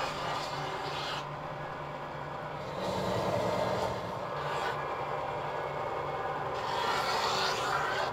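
Craftsman belt-and-disc sander running with a steady motor hum while wooden pieces are pressed against the sanding belt. The gritty sanding noise swells about three seconds in and again near the end.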